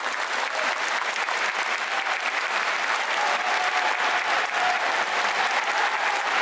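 Stadium crowd clapping steadily, a dense even patter of many hands.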